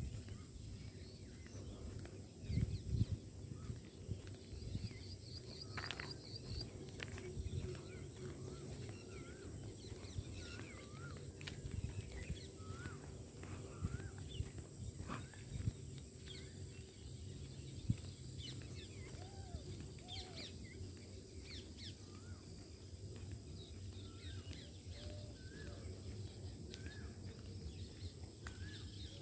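Several songbirds chirping and calling across the fields in short rising and falling notes, with a quick trill about five seconds in. Under them run a steady high-pitched whine and a low rumble.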